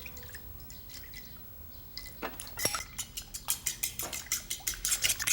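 Eggs and milk being whisked in a bowl, the utensil clicking rapidly against the bowl's side. About two seconds in it starts as a quick, even run of about four or five clicks a second.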